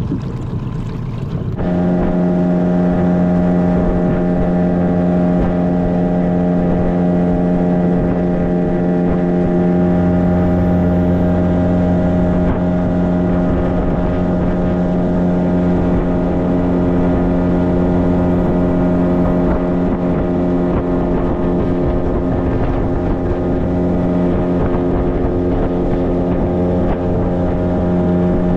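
Yamaha 9.9–15 outboard motor running at a steady speed. It comes in suddenly a little under two seconds in.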